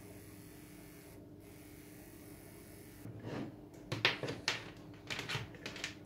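Handling noise: rustling, scraping and a few light knocks of hands picking up and moving plastic model parts on a workbench, starting about halfway in, over a faint steady hum.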